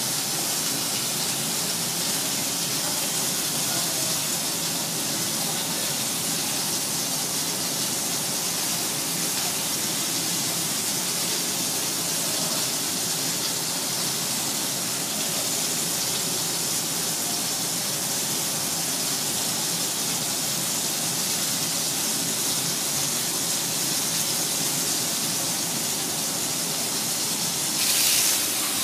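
A steady rushing hiss, then louder oil sizzling in a frying pan about a second before the end.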